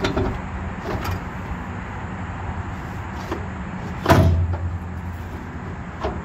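Clattering and knocking of tools and plastic bins being moved about inside a trailer's metal underbody toolbox, with one loud clank about four seconds in. A steady low hum runs underneath.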